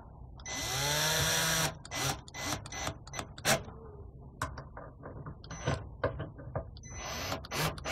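Cordless drill/driver running a mounting screw down: one steady motor whine of about a second early on, then a series of short trigger bursts and clicks as the screws are snugged.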